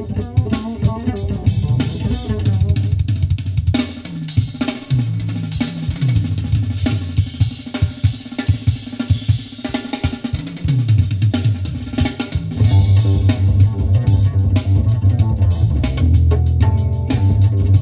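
Instrumental drum-and-bass music played through a custom car audio system (Technics tweeters, FaitalPRO midrange and 8-inch midbass drivers), heard inside the car. A busy drum kit with kick, snare and rimshots plays over a deep bass line, which gets louder about twelve seconds in.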